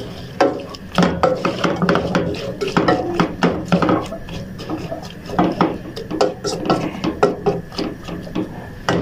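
Wooden spoon stirring sliced carrots in chermoula in a stainless steel pot: irregular scrapes and knocks of the spoon against the pot.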